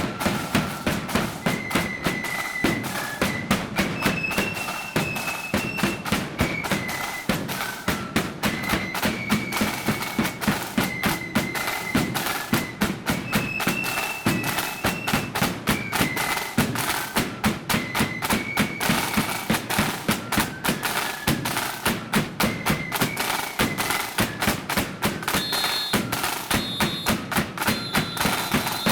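Marching flute band playing a march: flutes carry a high melody over drums beating about twice a second. The music cuts off at the end.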